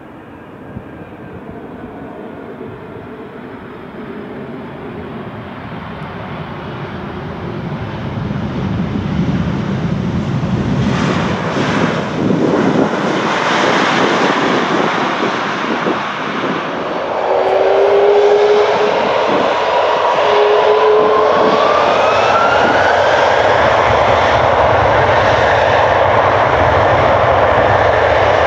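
Aircraft engine noise building steadily louder for about eighteen seconds, with a rising whine partway through, then holding loud and steady.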